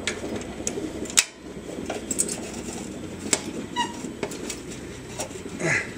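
Needle-nose locking pliers clicking and scraping against the drilled-out steel baffle inside a stock Yamaha Virago 1100 muffler as the loose baffle piece is worked free: scattered sharp metallic clicks, the loudest about a second in, and a short squeak near the four-second mark.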